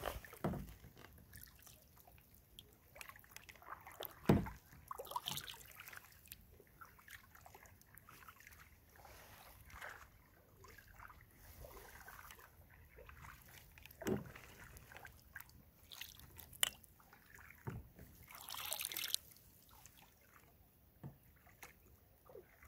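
Kayak paddling on calm water: quiet splashes and drips from the paddle blades, with a few dull knocks, the loudest about four seconds in, and a brief swish of water near the end.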